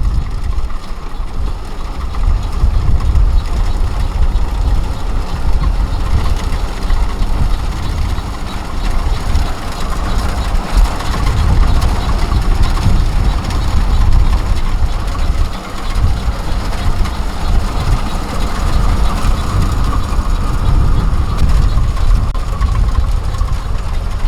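Combine harvester's diesel engine running continuously, with a low, uneven rumble underneath.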